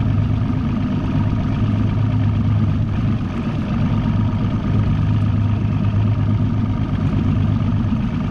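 A boat's outboard motor running steadily with an even, low, droning pitch.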